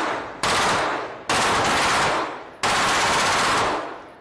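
Fully automatic rifle fire in short bursts: the tail of one burst, then three more bursts of about a second each in quick succession.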